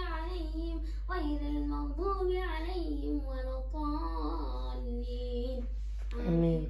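A child singing a wordless-sounding melody, holding notes and sliding between them, over a steady low hum.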